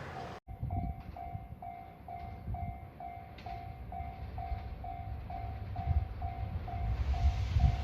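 Railway level-crossing warning bell ringing steadily, about two dings a second, over a low rumble; a train passes briefly at the very start.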